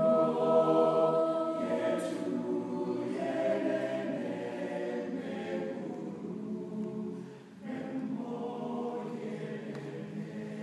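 Mixed choir singing unaccompanied in harmony, holding sustained chords. The singing dips briefly about seven and a half seconds in, then carries on.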